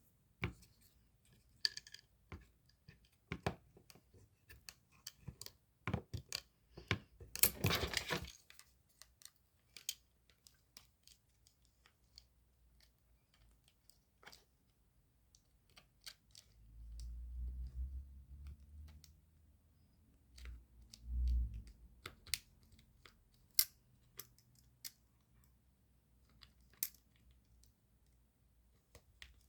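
Scattered small clicks and taps of hands handling a phone and small hard objects, with a short scraping noise about eight seconds in. Low rumbling handling noise comes twice in the second half.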